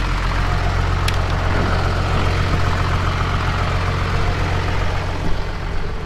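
Self-propelled crop sprayer's diesel engine running steadily, a deep even hum, with one faint click about a second in.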